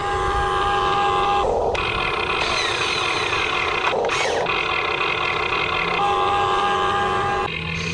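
Huina RC excavator whining steadily as it works, with a whine of several steady tones. The whine cuts out briefly twice, then stops near the end.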